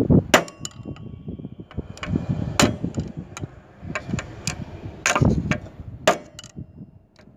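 Uneven series of metal-on-metal knocks from a steel rod being driven against a tractor's differential shaft assembly to seat a collar or bearing in the transmission housing. Some knocks ring briefly.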